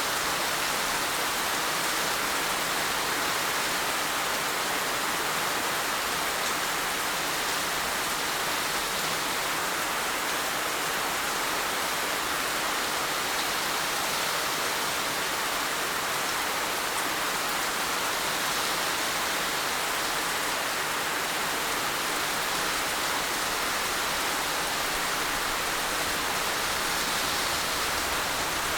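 Heavy rain falling steadily, a dense even hiss of countless drops with no pauses or changes.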